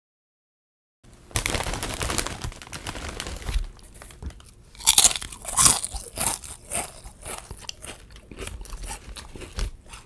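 Potato chips crunched and chewed close to the microphone, starting about a second in: first a dense run of crackly crunching, then louder separate crunches about half a second apart as the chewing goes on.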